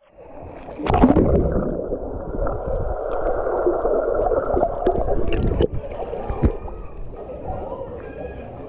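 Water splash as an action camera goes under, about a second in, then a muffled underwater rush and gurgling of a swimmer moving through pool water. About two thirds of the way through, it gives way to quieter open-air water sound.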